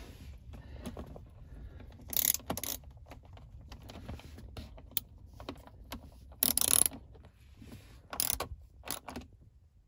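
Hand ratchet and socket tightening a nut, clicking in several short bursts with single clicks between.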